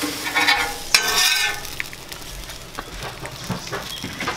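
Metal spatula scraping and tapping on a Blackstone steel flat-top griddle while hash browns and bacon sizzle. The scraping is loudest in the first second and a half, with a sharp tap about a second in; after that the sizzle carries on more quietly.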